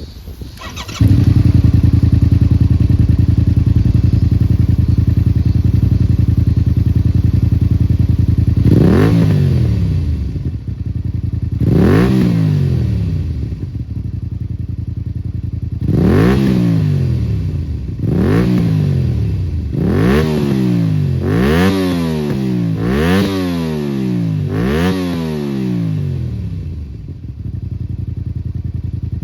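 Honda VTR250's 250 cc V-twin engine through a Valiente Allegria titanium muffler with its baffle removed. It starts up about a second in and runs steadily. It is then blipped about nine times, each rev rising and falling back, and the later blips come every second and a half or so before it settles to idle near the end.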